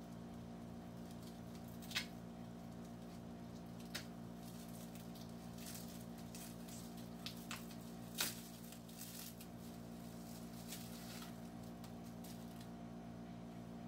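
Plastic bubble-wrap packaging crinkling and rustling as it is pulled off a parcel by hand, with a few sharp snaps, the loudest about 2, 4 and 8 seconds in; the crinkling stops shortly before the end. A steady low electrical hum runs underneath.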